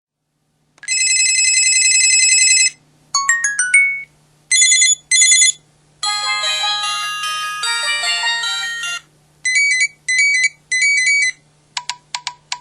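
MS400 mobile phone playing a series of its ringtones and effect sounds: first a trilling electronic ring, then quick runs of notes and paired beeps, a short polyphonic melody, and repeated double beeps with a few quick blips near the end. A faint steady hum runs underneath.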